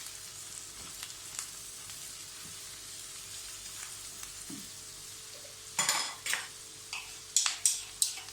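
Onion frying in butter in a pan, a steady sizzling hiss as it softens. From about six seconds in, a spoon stirring and scraping against the pan in several loud strokes.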